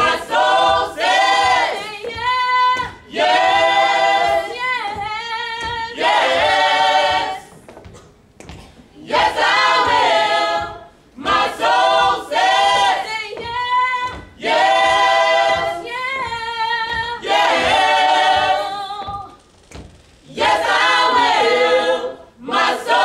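Small mixed choir of men and women singing gospel a cappella, sung phrases broken by short pauses.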